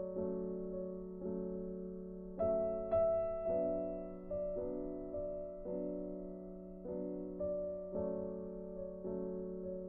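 Background music: slow, gentle piano or electric-piano chords, each struck and left to fade, with a new chord about every second.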